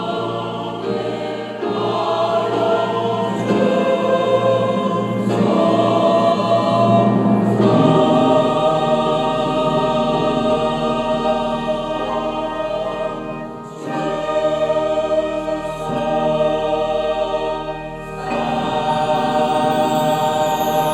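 Church choir singing a sacred anthem in sustained chords, with two short breaks between phrases in the second half.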